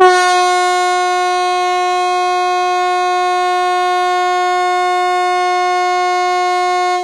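Hesa Fredrik, Sweden's outdoor public warning siren, sounding one loud, steady tone of unchanging pitch that starts abruptly and stops after about seven seconds. This is the 'Viktigt meddelande till allmänheten' (VMA) test signal: a seven-second tone followed by fourteen seconds of silence, repeated.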